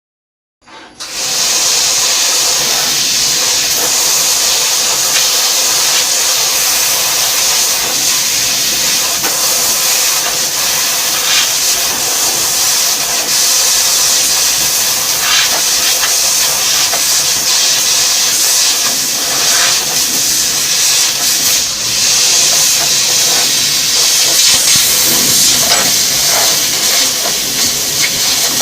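1200 W fiber laser cutter cutting 0.6 mm silver sheet: a loud, steady hiss from the cutting head's gas jet that starts suddenly about half a second in.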